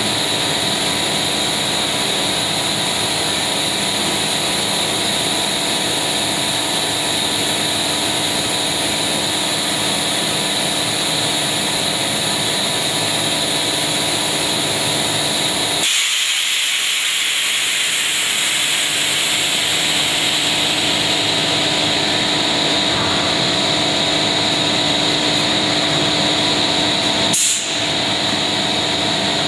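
Extrusion blow molding machine running: a steady mechanical hum with several steady tones over a high hiss. About halfway through, the low hum drops out suddenly, leaving mostly hiss, and a single sharp click comes near the end.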